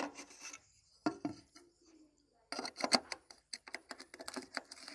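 A run of short, irregular clicks and light knocks of hard objects, a few about a second in and many close together through the second half.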